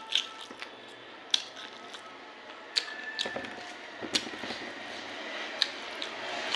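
Close-miked eating of rice and curry: wet chewing with sharp mouth clicks and smacks every second or so.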